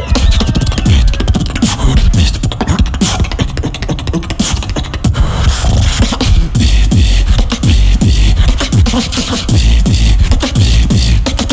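Beatboxer performing a competition solo routine: a run of rapid hi-hat and snare-like clicks over deep vocal bass notes that sweep downward in pitch again and again.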